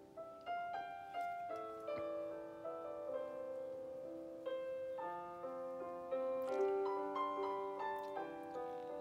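Background music: solo piano playing a melody over chords.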